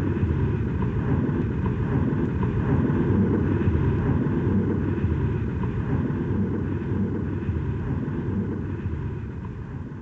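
Aircraft engine noise: a steady low rumble with a faint whine above it, fading down over the last few seconds.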